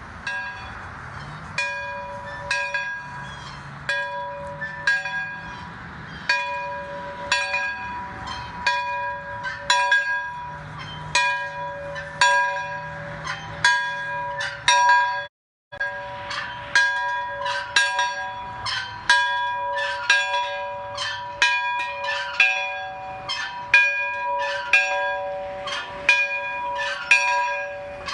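A single church bell rung over and over, roughly one stroke a second and a little uneven, each stroke ringing on into the next. The sound cuts out for a moment about halfway through.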